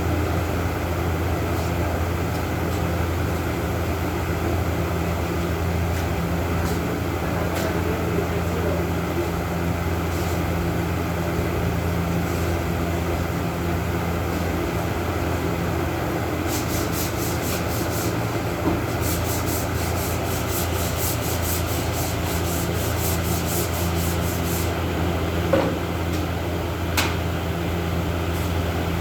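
Sanding: a steady rubbing of abrasive on a surface over a low hum. From about the middle to near the end it turns into quick, rhythmic rasping strokes, and there are two small knocks toward the end.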